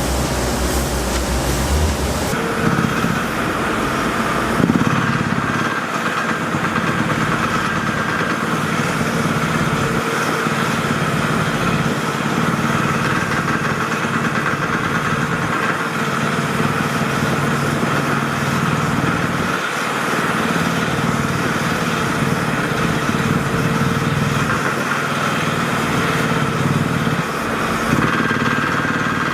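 An engine running steadily at idle, with a steady higher whine above its low drone.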